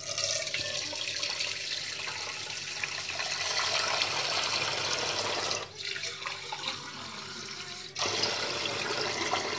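Water tap running hard into a sink, easing off for about two seconds past the middle and running full again near the end.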